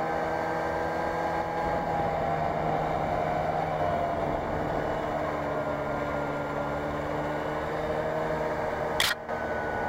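Snowmobile engine running steadily under load in deep snow, its pitch sagging slightly around the middle. A single sharp knock about nine seconds in.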